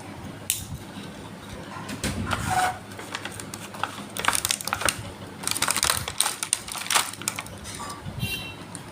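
Plastic and cardboard toy packaging being handled and opened: scattered sharp crackles and clicks, coming thick and fast about four to seven seconds in.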